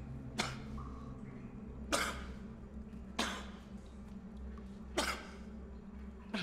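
A man coughing and gasping sharply five times, about every second and a half, as he comes round from unconsciousness. A low steady hum runs underneath.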